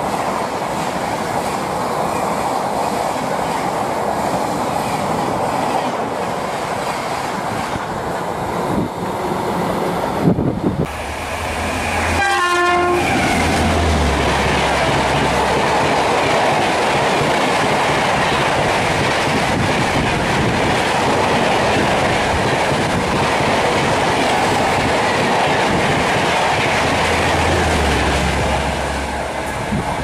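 Coaches of a Rajdhani express train rushing past a station platform at speed: a steady rush and rattle of wheels running over the rails. The sound breaks off sharply near ten seconds and again near twelve seconds, where a second, louder pass of coaches begins. That pass tails off near the end as the last coach clears.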